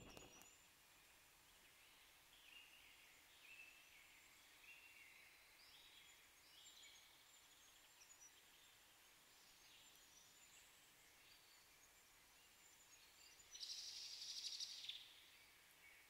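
Very quiet outdoor ambience with faint, distant bird calls: short high notes about once a second. A louder buzzy trill lasts about a second and a half near the end.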